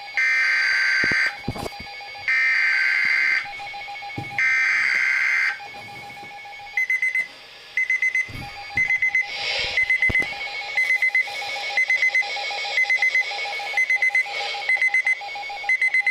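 Emergency Alert System signal: three loud bursts of buzzing digital header tones, each about a second long, then, about seven seconds in, an attention alarm of short beeps repeating in rapid groups.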